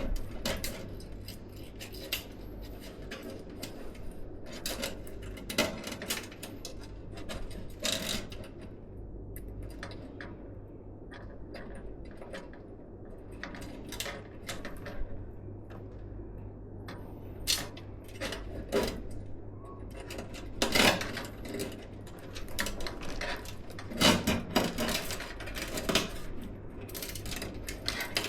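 Scattered clicks, taps and small rattles of PC parts and hardware being handled during assembly, with busier clusters about three quarters of the way through, over a steady low hum.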